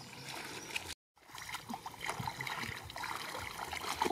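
Hands sloshing and splashing in shallow muddy water, with small trickles and patters; the sound cuts out briefly about a second in.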